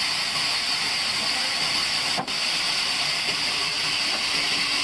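Large vertical band saw cutting through a log, making a steady hiss, with a momentary gap about two seconds in.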